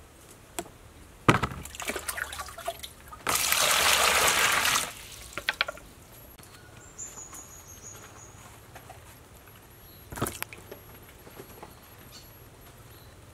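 Water splashing and pouring in a plastic basin for about a second and a half, after a sharp knock and some scattered splashing; a single knock comes later.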